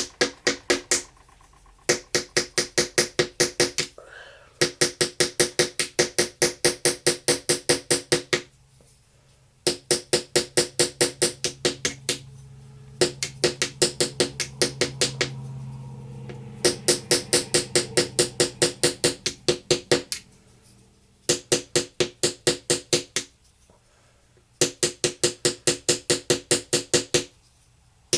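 Small hammer rapidly striking a chisel into a hard treasure-dig block, about four or five ringing blows a second in runs of a few seconds with short pauses.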